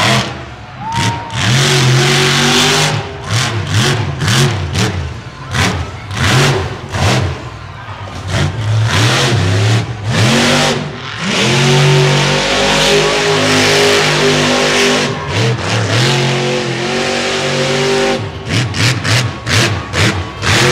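Monster truck engine revving hard over and over, its pitch climbing and falling with the throttle and held flat out for long stretches, then a quick string of short throttle blips near the end.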